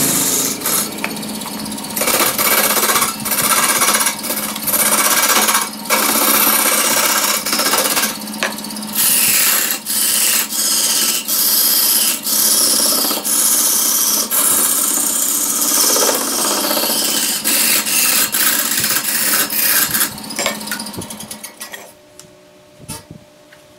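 A hand-held turning chisel cutting into a large wooden log spinning on a wood lathe: a loud, rough chipping noise in passes of a second or two with short breaks, over the steady hum of the lathe's motor. Near the end the cutting stops and the motor hum cuts out.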